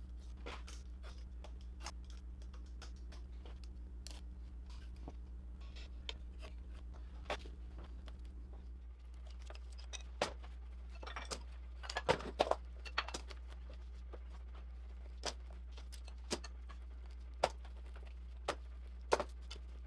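Faint scratching and ticks of plastic stretch wrap being slit with a blade, over a low steady hum. Then, about nine seconds in, a string of sharp clicks and clacks as quick-release bar clamps are released and taken off a laminated stem on its bending form.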